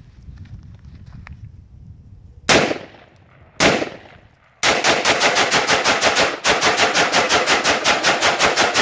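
AR-15 rifle firing: two single shots about a second apart, then a long, fast, even string of rapid fire that breaks only briefly before carrying on.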